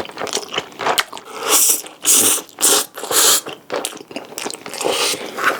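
Close-miked chewing and biting of food: a rapid run of wet clicks and crisp crunches, with louder bites about one and a half, two and a half and three seconds in.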